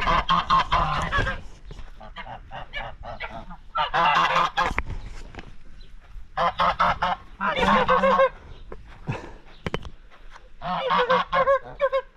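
A flock of domestic geese honking in loud bouts of several overlapping calls: one at the start, one about four seconds in, two close together around seven to eight seconds, and one near eleven seconds, with short pauses between.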